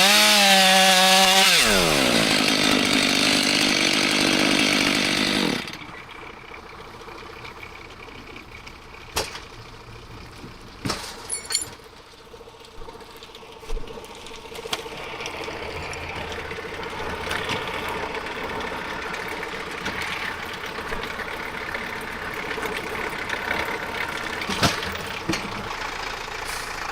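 Chainsaw running, its pitch dropping over the first two seconds, then holding steady until it cuts off about five and a half seconds in. After that a quieter low hum continues, with a few sharp knocks.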